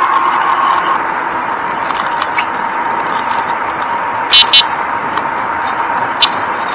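Steady rush of wind and tyre noise from a bicycle riding along a paved path, with a faint steady hum under it. About four and a half seconds in, two short, sharp high squeaks come in quick succession.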